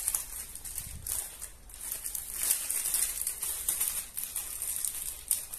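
Plastic wrapper of a biscuit packet crinkling and rustling as it is cut open with a knife, with a soft knock about a second in.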